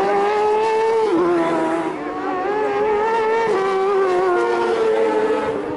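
Race motorcycle engine revving hard on the street circuit, its pitch climbing and stepping sharply down twice, about a second in and again past the middle.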